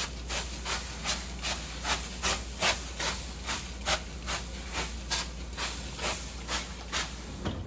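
Hand-held plastic trigger spray bottle pumped rapidly, about three short hissing squirts a second, misting water into a hot oven to make steam for a crusty bread crust.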